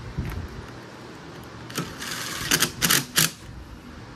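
A quick cluster of sharp clicks and clacks from hand tools and bolts being worked on the bike, a little after midway, preceded by a brief hiss. A fan hums steadily underneath.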